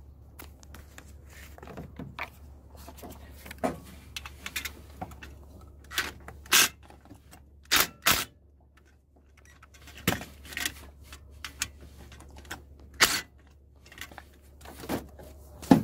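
Scattered sharp clicks and knocks of hands working on the fuse box's plastic housing and wiring as the wires are taken off the old main fuse, over a faint steady low hum.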